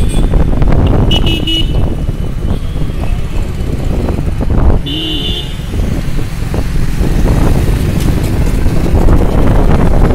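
Steady low rumble of city road traffic heard from a moving vehicle, with two short horn toots, one about a second in and another about halfway through.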